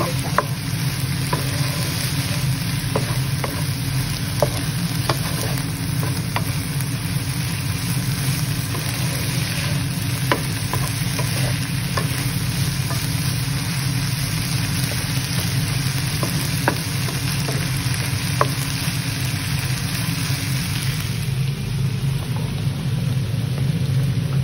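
Chicken, mushrooms, corn and green bell pepper sizzling in a frying pan, stirred with a wooden spatula that clicks and scrapes against the pan now and then. Near the end the sound changes to water bubbling at a boil.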